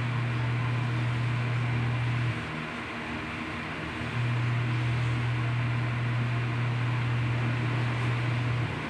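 A loud, steady low hum over a constant hiss, like a small motor or fan running; the hum stops for about two seconds a little over two seconds in, returns, and stops again near the end, leaving only the hiss.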